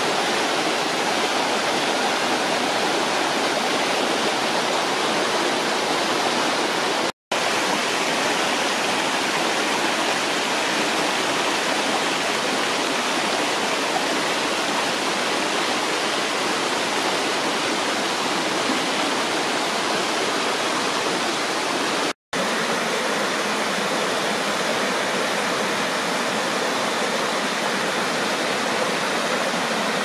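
Steady rush of water from the Palia Kavala waterfall and a small forest stream splashing over rocks, with two brief drop-outs to silence about seven and twenty-two seconds in.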